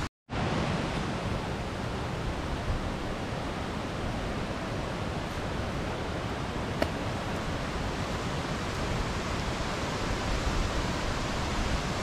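Steady, even rush of Khandadhar Falls, a 244 m waterfall in heavy rainy-season flow. The sound drops out for a moment at the very start.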